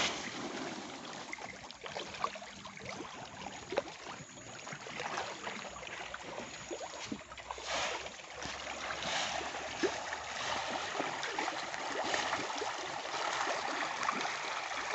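Tilapia crowding in a floating net cage and thrashing at the water surface as feed pellets are thrown in: a steady churning splash with many scattered sharper splashes.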